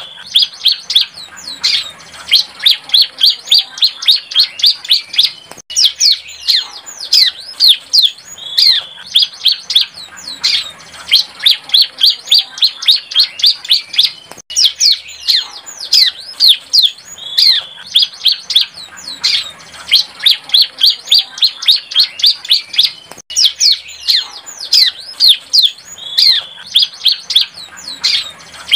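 Bar-winged prinia (ciblek) singing: a young bird's practice song of quick runs of sharp, high-pitched notes, many of them falling, sung almost without a pause.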